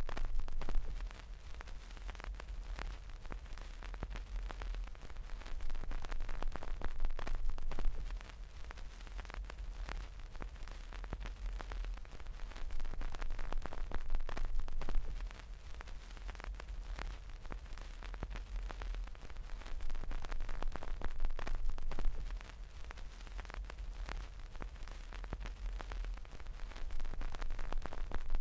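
Fingernails and fingertips scratching and rubbing the fluffy faux-fur covers of a homemade binaural microphone, right on the mic: crackly rustling full of small clicks over a low handling rumble. It comes in louder stretches about every seven seconds.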